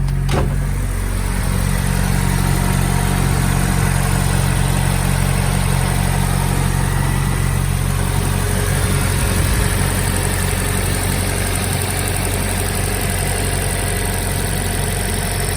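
Car engine idling steadily after a fuel injector replacement, running smoothly. A single short knock sounds just after the start.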